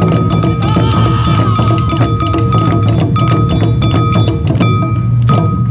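Awa Odori festival music played live: taiko drums and clanging percussion beating out the dance rhythm, with a high note held for about the first three seconds.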